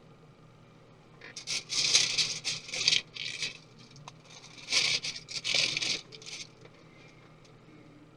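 Small tools and laptop parts handled on a work surface: two spells of scraping, scratching and light rattling, a few seconds apart.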